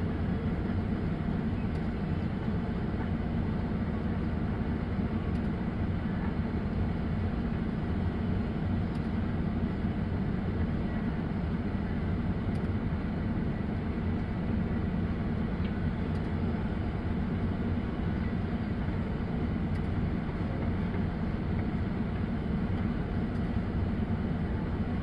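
Heavy diesel engine running steadily, an even low-pitched machine sound with no changes in speed.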